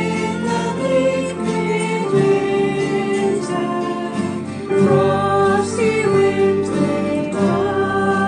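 Women's voices singing together, accompanied by acoustic guitar and piano.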